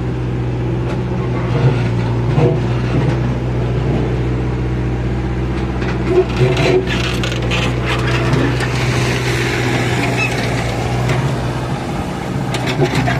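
A mechanical digger's diesel engine runs steadily, with knocks and clatter over it, strongest about six to seven seconds in.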